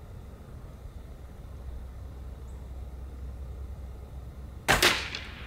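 A .22 calibre Beeman QT-GP spring-powered air rifle firing a single shot near the end, a sharp crack with a short tail. Before it there is only a low steady rumble.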